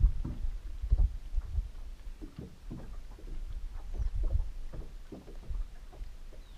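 Water lapping and slapping against the hull of a bass boat: irregular splashy ticks with low thumps, a few louder thumps near the start and about four seconds in.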